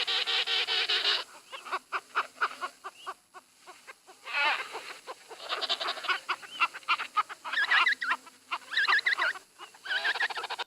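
Penguins calling: several birds overlapping in a dense chorus of warbling calls and rapid pulsed stretches.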